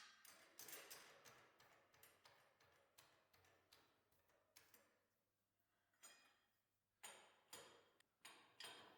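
Faint, irregular clicks and light clinks, a few with a short ring after them.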